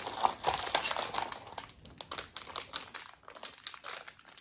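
Packaging of a collectible eraser pack crinkling and crackling irregularly as it is handled and opened by hand.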